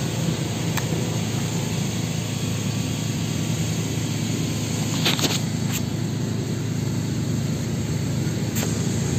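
Steady low mechanical rumble, engine-like, with a few short clicks about five seconds in and again near the end.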